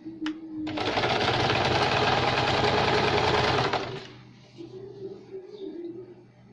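Usha Janome domestic sewing machine running at a steady speed for about three seconds, then stopping, as it sews a straight seam along a folded waistband casing for elastic.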